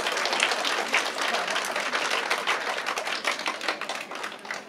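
A group of people applauding with hand claps, thinning out and fading near the end.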